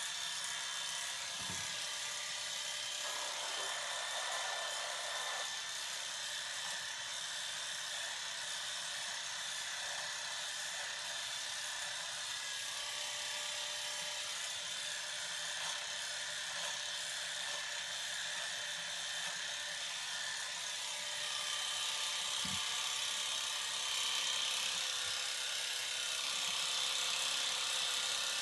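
Electric hair clippers running with a steady buzz while trimming hair, growing a little louder in the last few seconds.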